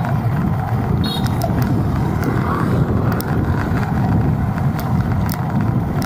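City street traffic heard while riding a bike through it: a steady low rumble of passing vehicles.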